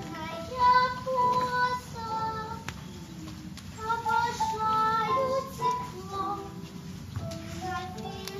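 A young girl singing a solo melody in held, stepping notes over backing music, with short breaks between phrases.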